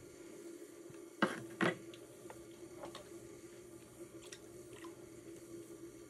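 Electric pottery wheel humming steadily as it spins. A little over a second in, two short, loud wet squelches of clay-covered hands and tools are heard, followed by a few faint clicks.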